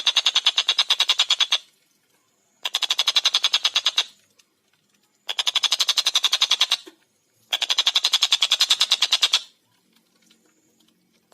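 Stork-billed kingfisher (tengkek buto) giving its rapid, rattling cackle of about ten notes a second. The call comes in four bursts of one and a half to two seconds, with short pauses between them.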